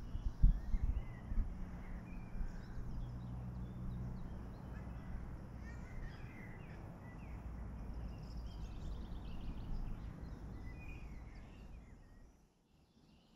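Wild birds chirping and calling in the surrounding trees, with a quick trill about nine seconds in, over a low rumble that is strongest at the start and fades. Near the end the sound drops to near silence.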